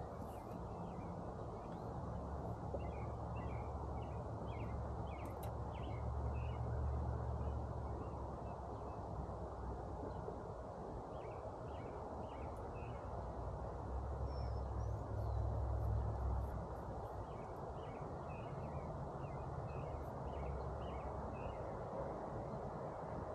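Small birds chirping in short, scattered calls over a steady outdoor hiss, with a low rumble that swells twice, about two seconds in and again around fourteen seconds.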